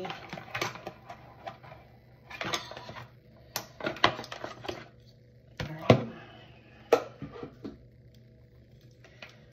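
A small cardboard cosmetics box being handled and opened: scattered clicks, taps and rustles of card, with a sharper knock about six seconds in and another about a second later.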